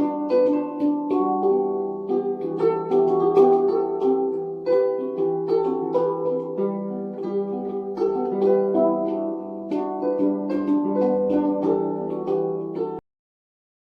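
Music on a plucked string instrument: a run of quick, ringing plucked notes over steady low notes. It cuts off suddenly about a second before the end, leaving silence.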